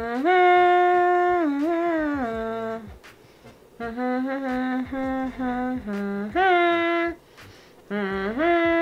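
A woman humming a slow tune with long held notes that slide between pitches, in three phrases with short breaks about three and seven seconds in.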